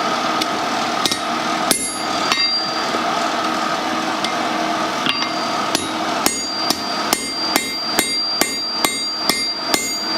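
Hand hammer striking a punch driven into hot steel, each blow ringing: a few spaced strikes, a pause of a couple of seconds, then a quicker run of about three blows a second from about six seconds in. A steady noise runs underneath.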